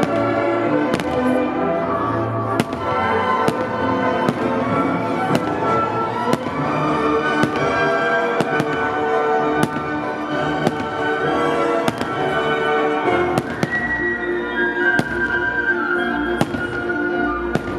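Fireworks shells bursting overhead, a string of sharp bangs about one to two a second at uneven spacing, over loud music playing throughout.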